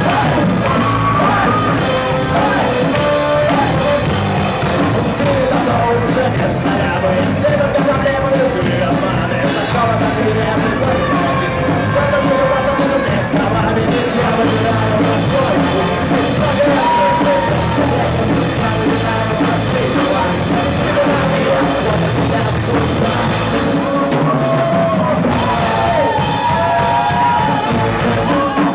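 Rock band playing live, a lead vocalist singing the melody over guitars, bass and drums.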